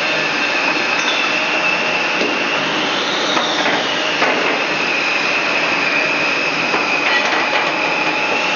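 Machinery running with a steady high whine over a noisy hum. The pitch rises briefly about three seconds in, then settles back.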